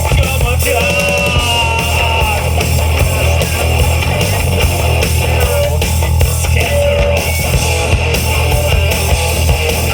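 Live rock band playing at full volume: drums, bass guitar and electric guitars, with a melodic line bending in pitch over the top.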